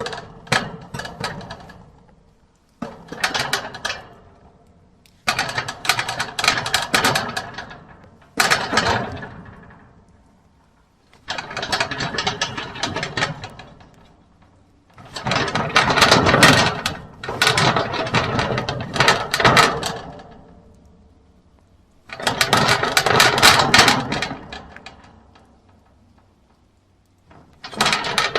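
Metal gate being swung and worked repeatedly, a rattling, clanking metal-on-metal run in about eight separate goes, each starting sharply and dying away over one to several seconds, the longest a few seconds past the middle.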